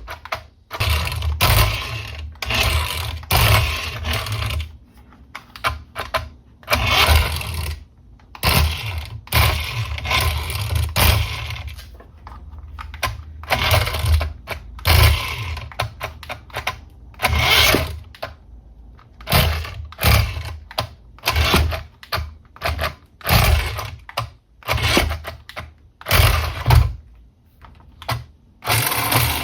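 Hands handling toy packaging and plastic toy parts: irregular rustling, clicking and knocking, in short uneven bursts.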